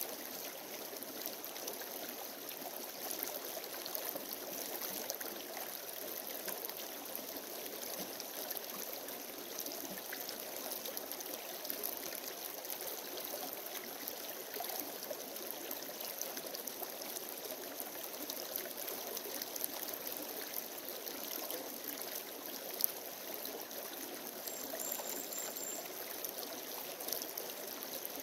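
Shallow rocky creek running steadily over stones, with one brief sharp tick about four-fifths of the way through.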